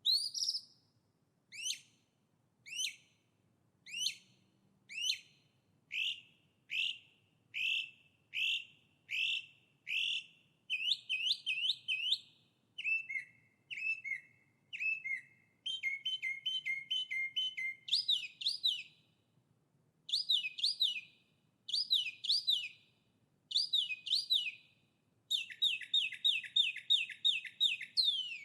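A songbird singing: phrases of one note repeated over and over, at first single notes about once a second, then changing to quicker trilled notes, with a fast rattling trill near the end.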